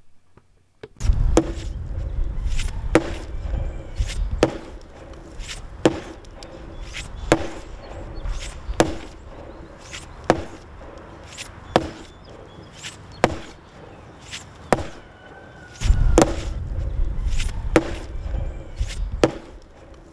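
An ash log being pounded with heavy, evenly paced blows, about one every one and a half seconds, each a sharp wooden thud with a short ring after it. The pounding makes the log give up its growth rings in long strips, called splints, for basket making. A low rumble sits under the first few blows and again near the end.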